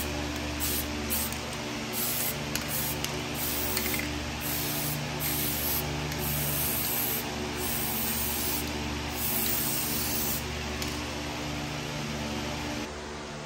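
Compressed-air gun hissing in repeated short bursts as it is triggered on and off, over the steady hum of a running machine that shuts off near the end.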